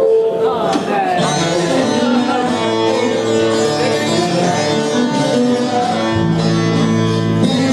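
Instrumental dance music with a plucked-string lead over sustained keyboard notes; a deep bass note comes in about six seconds in.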